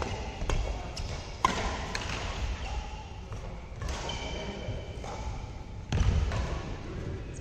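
Badminton rally: a few sharp racket-on-shuttlecock hits, the loudest about a second and a half in, with thuds of players' feet on the court around 6 seconds, echoing in a large hall.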